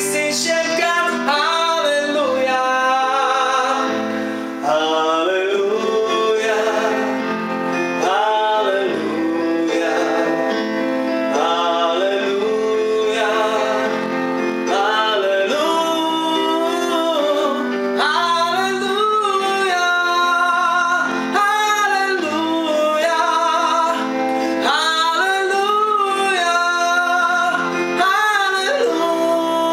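A song: a voice singing a slow melody over guitar accompaniment.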